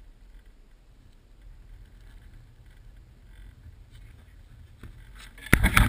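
Low wind rumble on the microphone with a few faint footsteps in snow, then about five and a half seconds in, loud knocking and rubbing as the action camera is picked up and handled.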